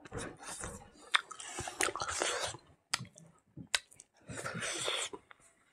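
Wet chewing and mouth smacking of a man eating smoked pork leg with his fingers, with several sharp clicks of the lips.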